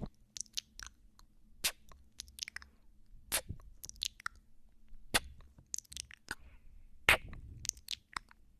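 ASMR mouth sounds close to a binaural microphone: irregular wet lip smacks and tongue clicks of mock ear nibbling and kissing, a few a second, with quieter clicks between the sharper smacks.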